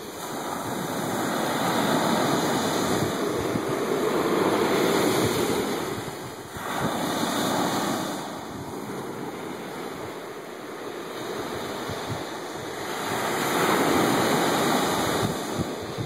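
Small ocean waves breaking and washing up a sandy beach: a steady rush of surf that swells and fades with the waves. It is loudest in the first third and again near the end, with a short lull about six and a half seconds in.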